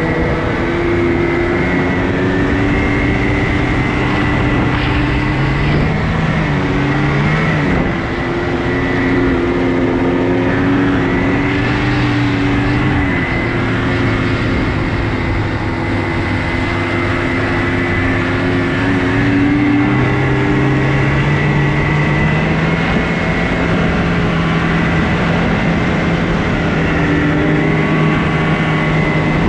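Snowmobile engine running under way, with a steady rushing noise underneath. The engine note wavers and dips about seven to eight seconds in, then climbs to a higher, steady pitch about twenty seconds in.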